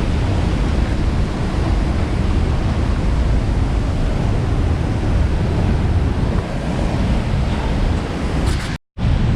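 Steady rush of a large waterfall pouring into its pool, heavy in the low end, with wind buffeting the microphone. The sound cuts out completely for a moment near the end.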